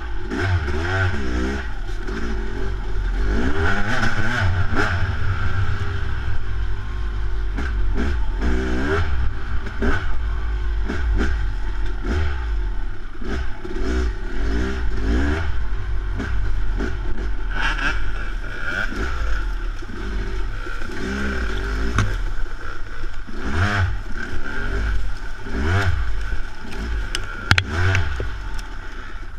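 Yamaha YZ250 two-stroke dirt bike engine revving up and down over and over as it is ridden along a rough trail, with clattering from the bike over the ground.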